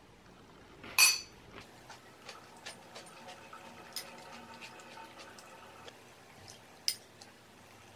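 Metal spoon clinking and scraping against a ceramic bowl while eating. One sharp clink about a second in, then scattered lighter taps.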